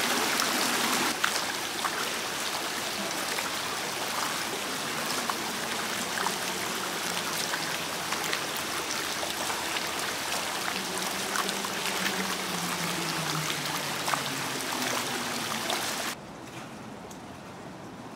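Thin sheets of water spilling down the stone steps of an outdoor cascade fountain: a steady splashing rush with scattered drip ticks. About sixteen seconds in it drops suddenly to a quieter, more distant water sound.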